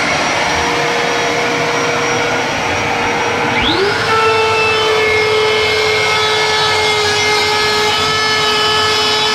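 A vacuum cleaner running with a steady whine. About three and a half seconds in, its pitch rises sharply and then holds at the higher pitch.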